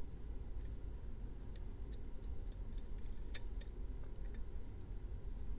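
Pick and tension tool clicking lightly inside an ASSA Max+ restricted lock as it is picked: scattered small metallic ticks from the pins and core, heard just before the lock opens. A steady low hum runs underneath.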